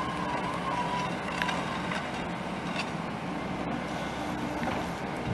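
Excavator engine running steadily while its wheel cutter attachment is pressed along the asphalt, cutting the road surface. A high whine sounds over it in the first second.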